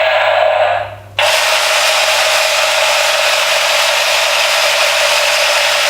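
Battery-powered toy M16 machine gun playing its electronic gunfire sound effect through a small built-in speaker, with the trigger held. It stops about a second in, then starts again at once and runs on steadily.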